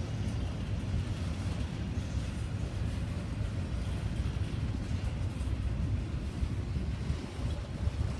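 Freight cars of a passing train rolling by on the rails, a steady low rumble.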